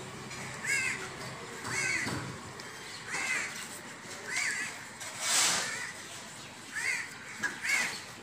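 Crows cawing repeatedly, about seven short caws roughly a second apart. A brief rustle comes about five seconds in.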